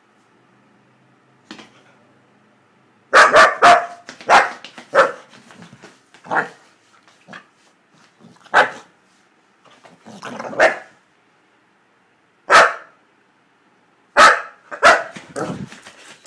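Boxer dog barking in play: about a dozen short, sharp barks starting about three seconds in, some coming in quick runs of two or three, with pauses between.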